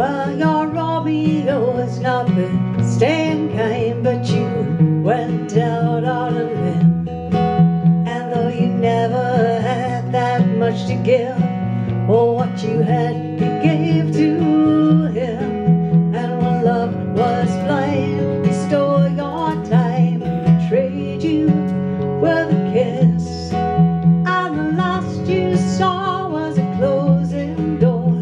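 Acoustic guitar picked and strummed over an electric bass line played through a small bass combo amp, with a woman singing.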